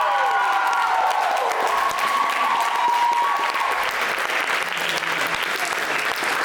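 Audience applauding steadily, with several voices calling out over the clapping in the first few seconds.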